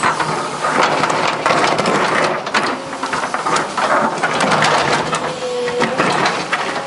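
Excavator bucket grinding and scraping against reinforced concrete as it digs in under a slab, with a dense run of sharp cracks and crunches, over the machine's running engine.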